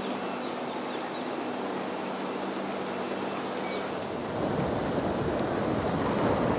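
Boat engine hum over the rush of water and wind noise on the microphone; about four seconds in the hum drops away and a louder, heavier rush of wind and water takes over.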